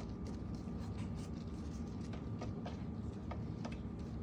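Faint, irregular light taps and clicks from food being handled and placed in a baking pan, over a steady low hum.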